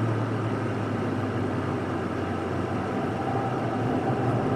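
Ford Fiesta ST MK7's turbocharged 1.6-litre four-cylinder engine running at a steady pitch, heard from inside the cabin while the car drives on.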